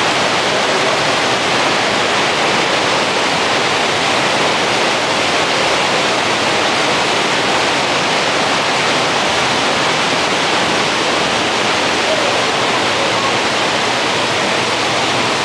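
Steady, loud rush of flowing water from a nearby stream or waterfall, an even hiss that does not change.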